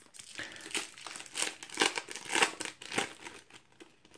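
A foil packet of Panini EURO 2016 trading cards being torn open and crinkled by hand: a run of short crackling rips, loudest around the middle, dying down near the end.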